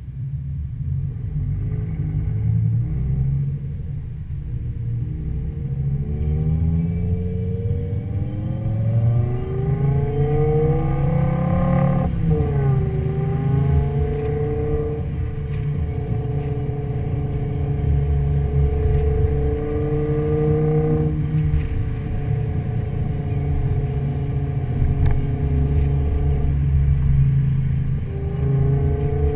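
Car engine pulling through the gears while driving. Its pitch climbs steadily for several seconds and drops sharply at a gear change about twelve seconds in, then holds fairly level with further dips. A heavy low road rumble runs underneath.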